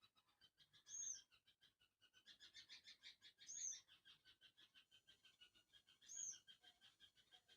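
Faint animal calls: a short, high arched note repeating three times about two and a half seconds apart, over a fast pulsing chatter.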